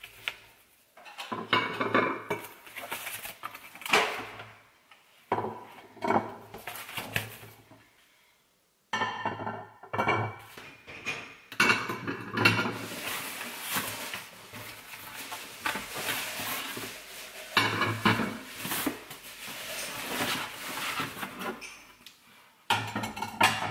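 White ceramic plates and bowls clinking and knocking together as they are lifted out of a cardboard box and stacked on a hard counter, with cardboard packing rustling between the clinks.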